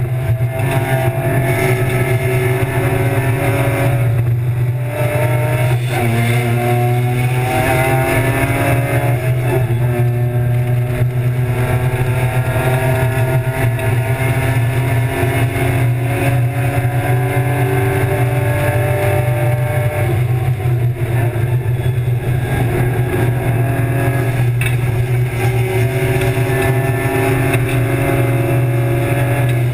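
Racing BMW E36 325's 2.5-litre M50 inline-six running hard at track speed, heard from inside the cabin over a steady low drone. The engine note climbs in pitch and drops back several times as it is shifted through the gears.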